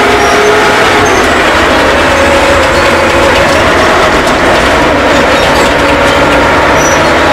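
Caterpillar D7F crawler bulldozer travelling: its diesel engine running steadily under the clank of its steel tracks, with wavering squeal tones from the running gear.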